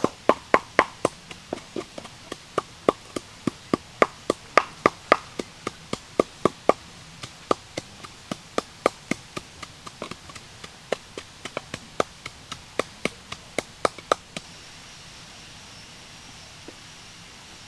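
Wooden pestle pounding in a wooden mortar, about three sharp knocks a second; the pounding stops about three-quarters of the way through.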